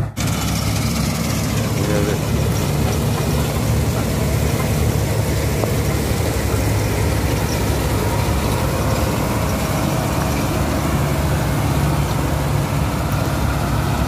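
Combine harvester's diesel engine running steadily with a low hum and a constant rush of noise from the machine as it cuts wheat.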